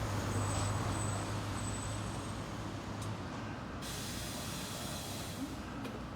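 A route bus idling, its engine a steady low hum, with compressed air hissing from its air system. The hiss breaks off about three seconds in, then comes back stronger for about two seconds.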